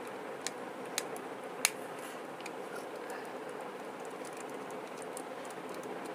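Three light clicks in the first two seconds as small screws and a screwdriver are handled on the motorized ball valve's plastic actuator housing, then only a steady background hiss.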